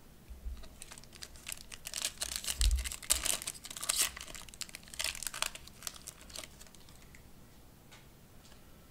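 A foil trading-card pack (2021 Panini Prizm Draft Picks) being torn open, its wrapper crinkling and crackling for about six seconds, loudest between two and four seconds in, then going quiet except for a few faint ticks.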